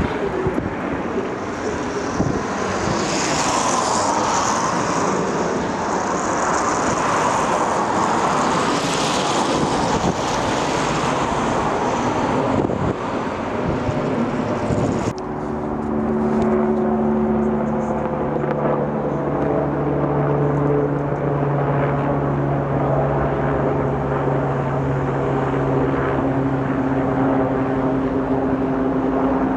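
Airbus A320-family airliner with CFM56 turbofans passing low overhead after departure: a loud, broad jet roar with a high whine. About halfway through it cuts to a Kazan Ansat twin-turbine helicopter flying past: a steady, even hum of held rotor and turbine tones.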